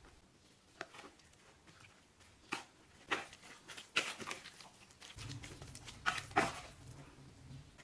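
Plastic rice paddle stirring a wet egg-and-shredded-vegetable batter in a plastic bowl: irregular scrapes and knocks against the bowl, a few at first and then denser from about two and a half seconds in.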